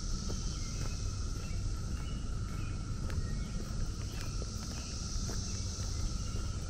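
Brood X periodical cicadas droning in a steady, unbroken chorus, with short bird chirps and footsteps on a dirt trail under it, and a low rumble throughout.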